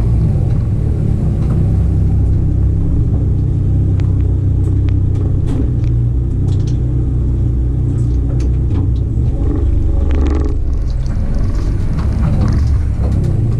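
Mazda RX8 race car's engine running at a steady low speed, its pitch holding nearly level, with scattered light clicks and knocks.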